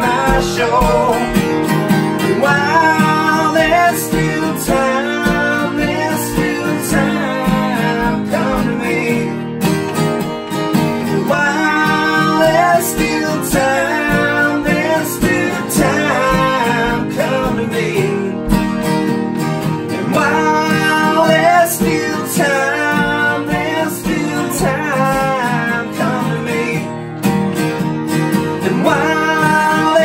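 Two acoustic guitars strummed while two men sing together: an alt-country song performed live.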